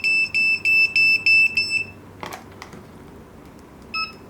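Retekess TD168R restaurant pager sounding its call alert: a fast run of even, high beeps, about three a second, which stops about two seconds in. A couple of clicks follow, then a single short keypad beep near the end.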